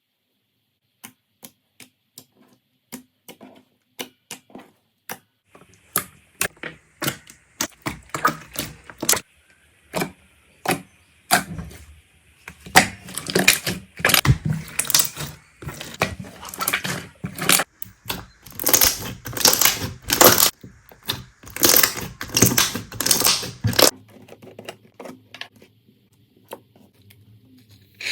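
Slime being worked by hand, giving sharp clicks and pops that start sparse, build into dense crackling through the middle, and thin out again near the end.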